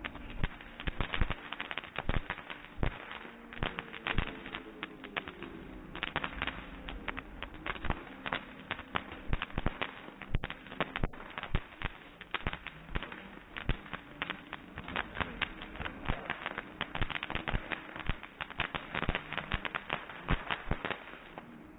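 Fireworks fountain crackling: a dense, continuous run of sharp pops and small bangs.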